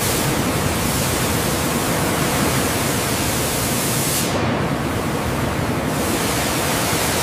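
Steady, loud rushing hiss with no tone or rhythm, cutting in abruptly.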